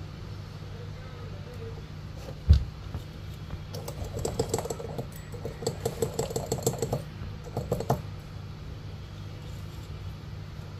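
Clusters of rapid light clicking and tapping, like typing, over a steady low hum, with one sharp knock about two and a half seconds in.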